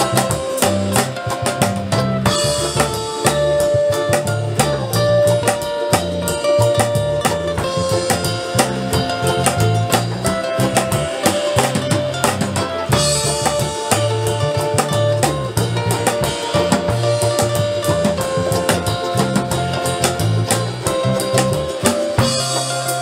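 Ukulele band playing an instrumental passage: many strummed ukuleles over a steady drum beat and bass line, with a held melody line on top.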